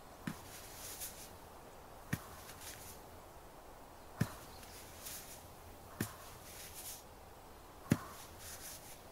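Acupressure being pressed into the upper arm in a binaural ASMR massage: five soft presses about two seconds apart, each a short dull thud followed by a brief rustle.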